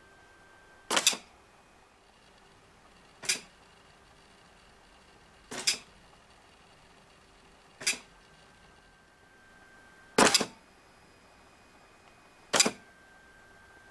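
Epson LQ-300+ 24-pin dot matrix printer's print head firing, printing one character at a time: a short buzzing clatter six times, about every two and a half seconds, as each test byte arrives from the Arduino.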